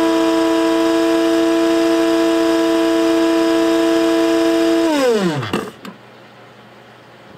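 Electric coffee grinder motor running with a steady high whine, then switched off about five seconds in, its pitch falling quickly as it spins down to a stop.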